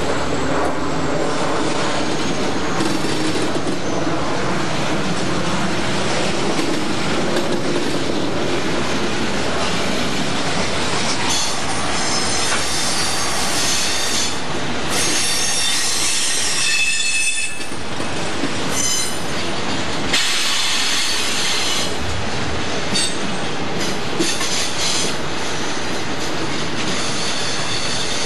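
Freight train's hopper cars and boxcars rolling past close by, with high-pitched steel wheel squeal coming and going for about ten seconds from the middle.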